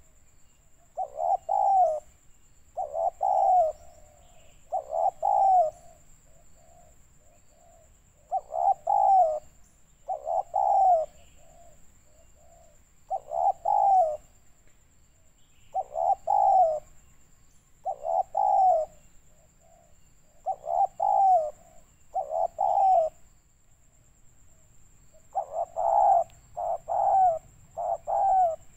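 Spotted dove (tekukur) cooing over and over in phrases of two or three low, rolling notes, about one phrase every one to two seconds.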